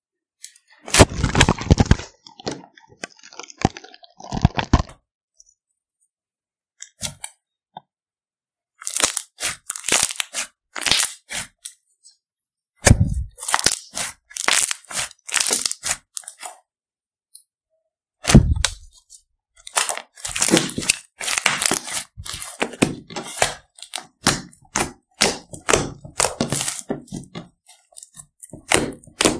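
Fluffy slime being poked, stretched and squeezed by hand, crackling and popping as trapped air pockets burst, in spells separated by silent pauses. Twice a deeper, duller pop stands out.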